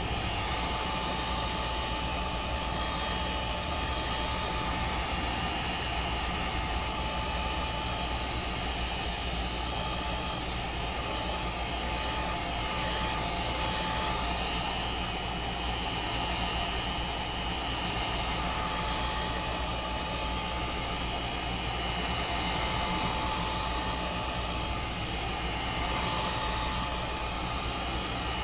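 Heat gun running on its low setting: a steady blowing rush with a faint, steady whine.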